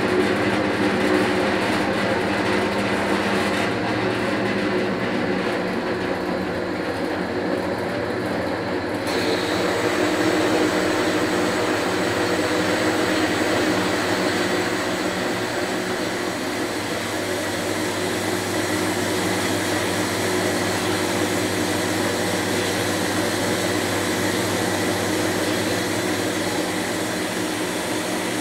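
Horizontal metal-cutting bandsaw running and sawing through a flat steel bar: a steady motor hum under the hiss of the blade, growing brighter about nine seconds in.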